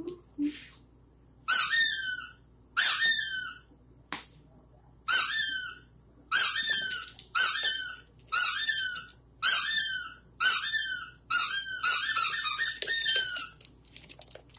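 Squeaky rubber dog toy squeezed again and again during play with a puppy, one high squeak about every second, with a quicker run of squeaks near the end.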